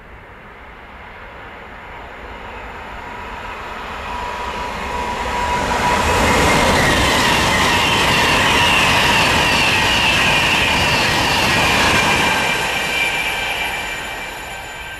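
A train passing: its noise builds as it approaches, stays loud for about six seconds as it goes by, then fades away. A high whine drops in pitch as it passes.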